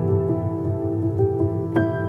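Soft background music with sustained piano-like chords.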